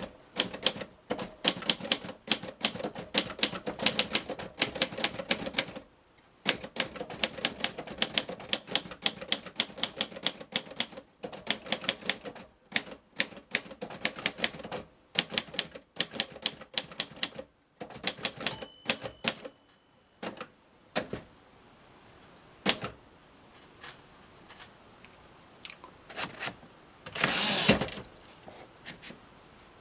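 1951 Royal Quiet De Luxe manual portable typewriter being typed on: fast runs of sharp key strikes with short pauses, growing sparser in the second half. A short bell ring comes about two-thirds through, and a longer rasping sweep near the end, like the carriage being returned.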